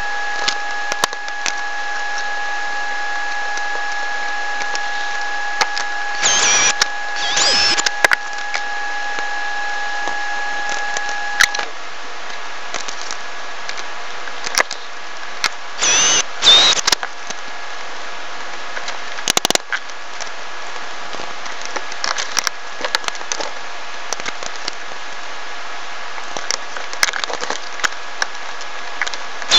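Scattered clicks, taps and scrapes of metal guitar tuning machines being handled and fitted into a wooden headstock, over a steady hiss. A steady high whine stops abruptly about a third of the way in.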